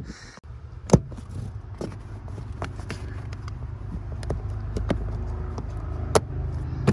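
Sharp clicks and knocks of a rubber all-weather floor mat being handled and pressed down onto its round plastic floor clip anchor, the loudest about a second in and near the end, over a steady low rumble.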